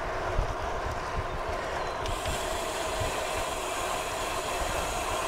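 Wind buffeting the microphone of a handlebar-mounted GoPro on a road bike riding at about 20 mph, over a steady rush of tyres on tarmac. The hiss brightens about two seconds in.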